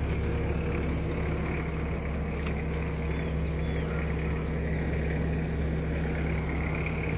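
A motor vehicle engine idling steadily, a constant low drone that holds the same speed throughout.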